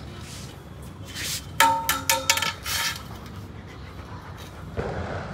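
A thin metal rod clanking and ringing as a German shepherd bites and tugs at it: a quick run of sharp metallic clinks about a second and a half in, then a duller knock near the end.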